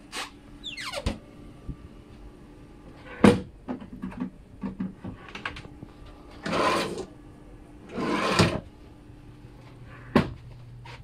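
Drawers and cupboard doors being opened and shut: a series of sharp knocks and clicks, a short squeak about a second in, and two longer sliding rushes about midway.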